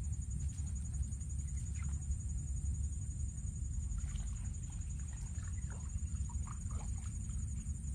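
Steady high insect chorus, a continuous finely pulsing trill of crickets or similar insects, over a low rumble, with a few faint short chirps scattered through the middle.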